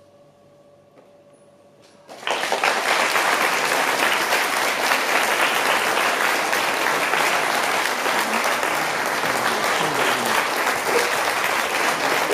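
A faint steady tone, then about two seconds in an audience breaks into applause, which starts suddenly and goes on steadily.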